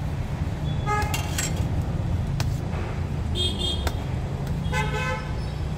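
Passing road traffic with a steady low engine rumble and short vehicle horn toots, about a second in, around three and a half seconds and again near five seconds. A couple of sharp clicks fall between the horns.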